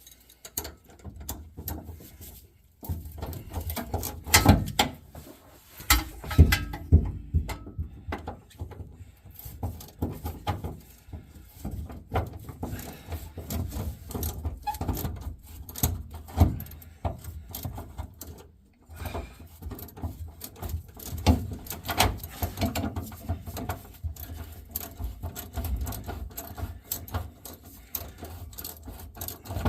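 Irregular knocking, clanking and scraping of hand work on metal parts under a car, with heavy bumps and thuds in between and no powered tool running.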